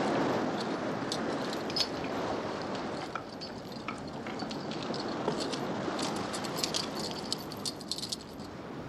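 A large crowd walking on sand, with many scattered light clinks and jangles over a steady rush of wind and surf; the clinks are thickest about six to eight seconds in.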